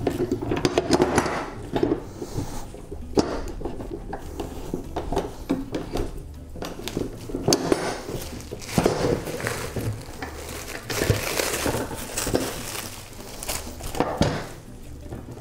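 Metal bar clamps clanking and rattling as they are loosened and taken off a bent-lamination form, with plastic wrap crinkling as it is pulled away.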